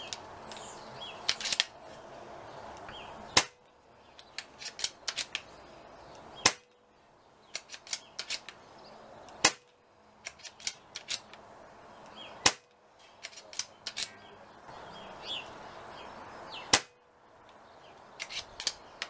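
Brocock Concept .177 pre-charged pneumatic air rifle fired five times, sharp cracks about three seconds apart, each with a brief ring after it. Lighter clicks fall between the shots.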